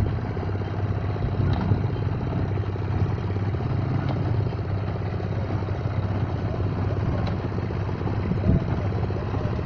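The engine of a BCS four-wheel riding reaper binder running steadily under load as the machine cuts standing wheat, a constant low hum with a few faint clicks.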